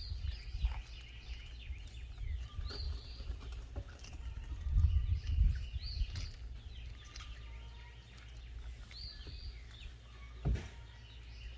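Birds chirping, short calls repeated every few seconds, over a low rumble, with one sharp knock near the end.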